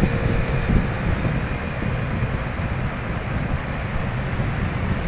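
Air-conditioning condensing unit's fans running steadily after being switched back on, one of them driven by a fan motor fitted with a new bearing, heard as a low, even rumble. Wind buffets the microphone, with two brief thumps in the first second.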